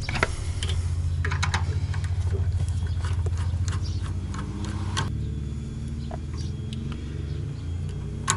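Small metal clicks and scrapes of a nut driver working the terminal nuts on a water heater's heating element, over a steady low hum.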